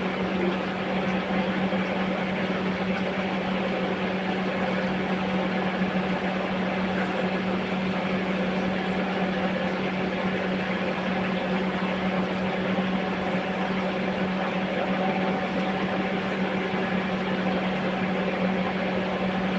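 Steady mechanical hum of a running motor, with a constant low drone and an even whirring noise.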